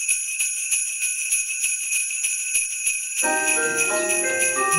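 Sleigh bells jingling in a steady, quick rhythm. About three seconds in, a melody of bright, chime-like notes joins them.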